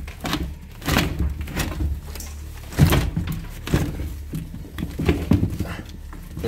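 A board blocking a wooden stairway being pushed and slid aside: a run of loud wooden knocks and thuds with scraping between them, the biggest about a second in and again near the three-second mark.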